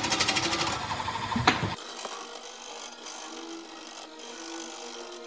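Small inside-spinning lathe running, turning a brass trumpet bell on its pattern. A fast, even clatter fills the first second, a single knock comes about a second and a half in, and then the lathe settles into a quieter steady hum.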